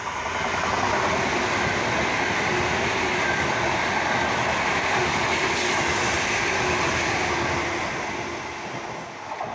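Frecciarossa 1000 (ETR 400) high-speed electric train running through the station without stopping. Its steady rush of wheel and air noise builds in the first second as it reaches the platform, holds, and fades near the end as it recedes.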